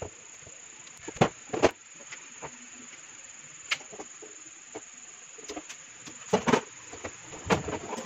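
Scattered short clicks and taps of hand tools, a hair dryer's cord and plug being handled on a workbench, with the sharpest clicks clustered near the end. Throughout, a steady faint high-pitched tone sits in the background.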